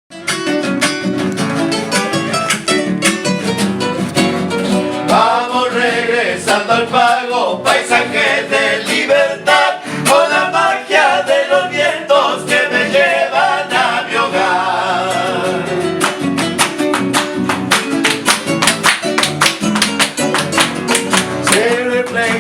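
Argentine folk music: acoustic guitars strummed in a steady rhythm with a melody line over them, starting suddenly; the strumming grows denser about two-thirds of the way through.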